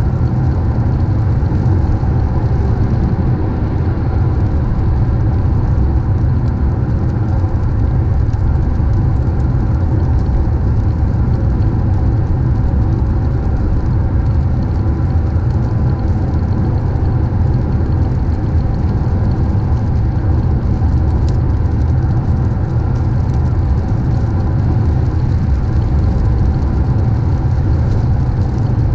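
Steady road and engine noise of a car driving, a constant deep rumble with no change in pace.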